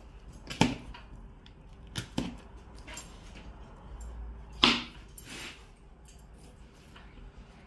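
Knife scraping and cutting along a lamb leg's shank bone in a few short strokes, trimming the meat off the bone. The loudest stroke comes about two-thirds of the way through.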